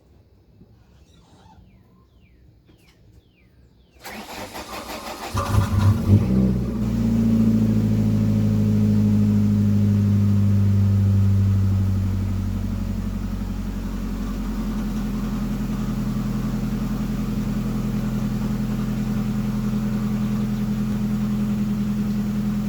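1998 Ford Escort ZX2's four-cylinder engine cranked by the starter about four seconds in and catching within a couple of seconds, then idling fast before dropping to a lower steady idle about twelve seconds in.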